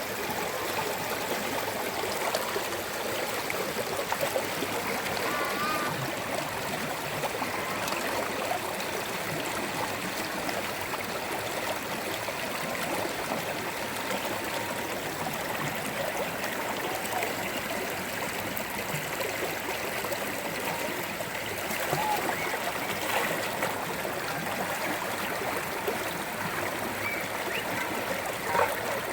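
Steady rushing water noise, even throughout, like heavy rain or a flowing stream in a forest.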